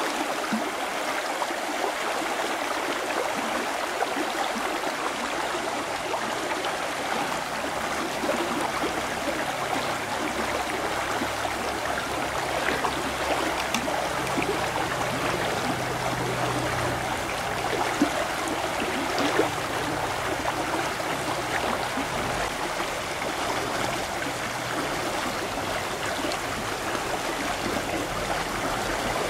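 Shallow river rushing over rocks, a steady splashing rush of water, with a couple of faint clicks a little past halfway.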